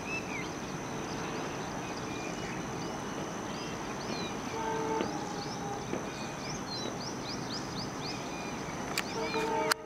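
Steady outdoor noise with birds chirping, and a distant train horn sounding briefly about halfway through and again near the end. A sharp click comes just before the end.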